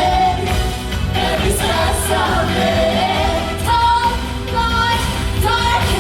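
A song from a live stage show: voices singing held notes over loud music with a heavy bass.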